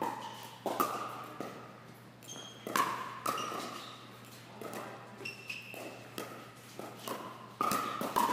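Pickleball paddles striking the ball during a rally: a series of sharp pocks, each with a brief ringing tone, coming at uneven intervals of about half a second to two seconds.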